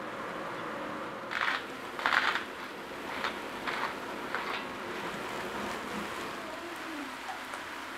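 Chopped vegetables sizzling in a pot while diced carrots and parsnip are tipped in and stirred with a wooden spoon. A handful of short scraping and tumbling bursts, the loudest about two seconds in, sit over the steady sizzle.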